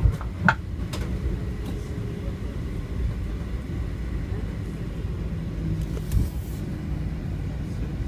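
Steady low cabin rumble of a Boeing 737-700 taxiing, heard from inside the passenger cabin. Two short sharp knocks come in the first half second.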